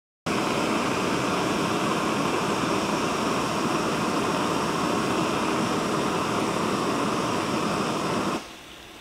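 Backpacking canister gas stove burner running with a loud, steady hiss under a heat-exchanger pot. The flame is shut off at the valve a little after eight seconds in, and the hiss drops abruptly to a much softer one.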